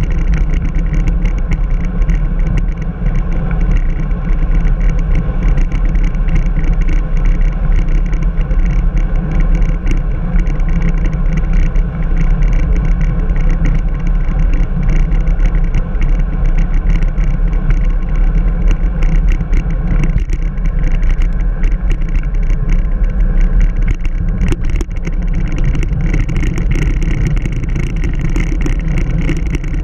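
Steady wind buffeting on the microphone and tyre rumble from a road bike rolling at speed on asphalt, heavy at the low end. Two brief knocks in the second half.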